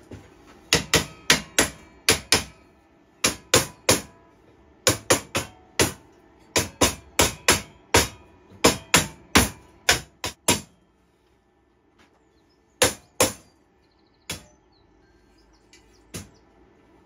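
Mallet tapping laser-cut steel plates into a welded steel frame: about 25 sharp strikes in pairs and quick runs over roughly ten seconds, then a pause and a few single and double blows spaced out toward the end.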